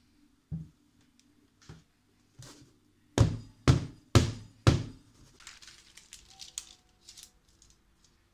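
A round metal cake pan full of sponge cake batter rapped down on the counter four times, about two knocks a second, to knock air bubbles out of the batter. A few lighter knocks come before, and small clicks and rattles follow.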